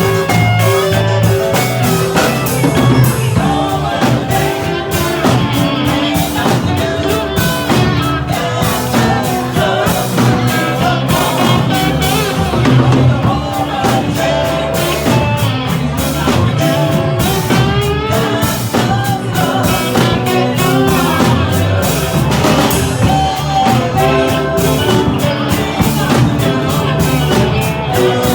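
Live band playing a song on drum kit and guitar, loud and continuous.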